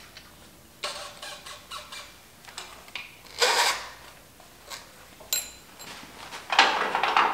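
Short rubbing and scraping sounds, several in a row, as the loosened front fork leg of a 1975 Honda CB750 is twisted and wiggled by hand. The loudest come about halfway through and near the end, with a few light clicks a little after five seconds.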